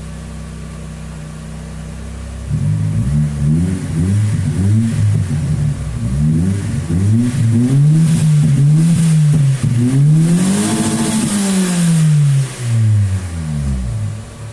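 Car engine idling steadily, then revved up and down again and again from about two and a half seconds in, the pitch rising and falling in repeated swells until shortly before the end.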